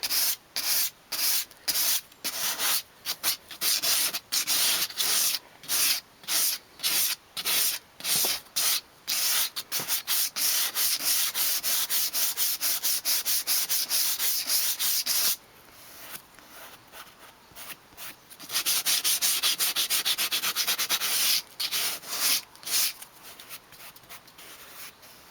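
Sandpaper rubbed by hand over dried filler on a leather car-seat bolster, in quick back-and-forth strokes. It stops for a few seconds in the middle, starts again, and tails off into a few scattered strokes near the end.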